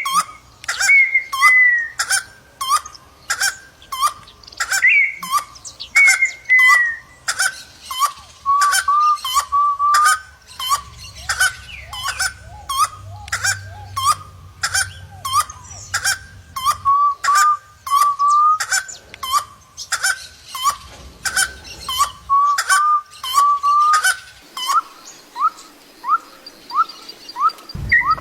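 Birds calling: a sharp note repeated evenly, nearly twice a second, over short whistled calls that slide up and down in pitch.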